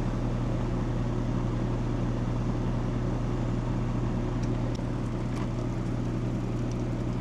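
Residential air conditioner's outdoor condensing unit running: a steady compressor hum under the even noise of the condenser fan. A few faint clicks come about halfway through.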